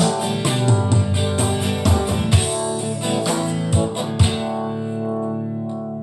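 Instrumental outro of a song led by guitar: quick plucked notes for about four seconds, then a final chord left ringing and slowly fading.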